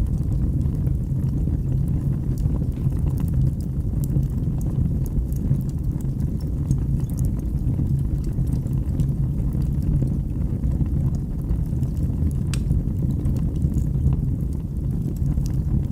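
Fire burning in a fireplace: a steady low rumble of the flames with small scattered crackles, and one sharper pop about three-quarters of the way through.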